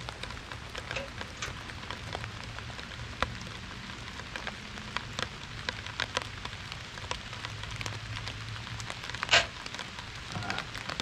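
Steady rain falling with many small drip ticks. About nine seconds in there is one loud click, the Lancer Tactical .22 break-barrel air rifle being snapped shut after loading a pellet.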